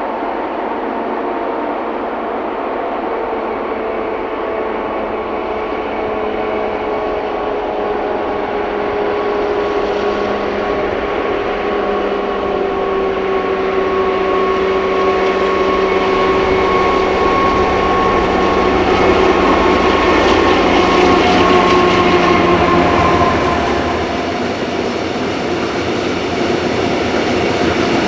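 A class 241 'Ludmilla' diesel locomotive with a V16 two-stroke engine, working at full power on a 4000-tonne loaded sand train. It grows steadily louder as it approaches, its engine tones sagging slightly in pitch. About three-quarters of the way through the engine note drops away and the rumble of the heavy wagons takes over.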